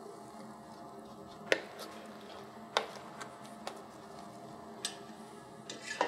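Metal kitchen utensils clinking as a spoon works in a fine-mesh chinois strainer held over a stainless saucepan: four or five sharp clinks about a second apart, the first the loudest, over a low steady hum.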